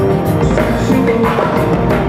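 Live band playing, with the drum kit's bass drum and snare hits prominent over guitar and keyboard.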